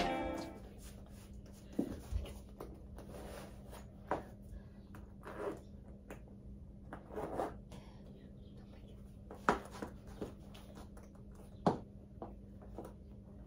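Quiet rustling of clothing and scattered knocks and thumps as knee-high boots are pulled on, over a steady low hum in the room. A few sharper knocks stand out, two of them near the end.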